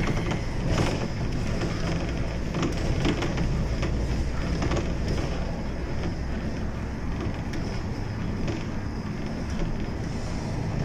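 City bus running on its route: a steady low engine and road rumble with occasional short rattles.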